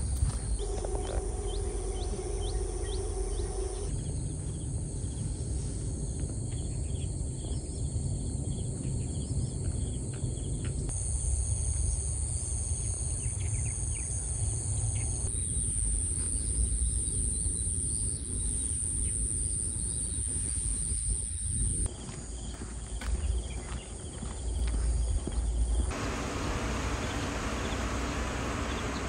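Countryside ambience: a steady high insect buzz over a low rumble, with scattered short bird chirps, the mix shifting at several cuts. Near the end a steady rushing hiss of churning water from a pond aerator comes in.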